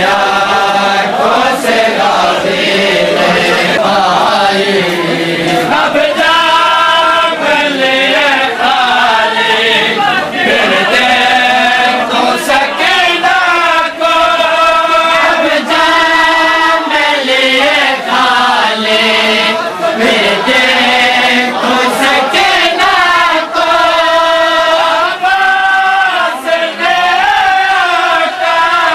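Men's voices chanting a noha, the Shia mourning lament of Muharram, in unison, holding long wavering notes with short breaks between lines. A few sharp slaps, typical of chest-beating (matam), cut through here and there.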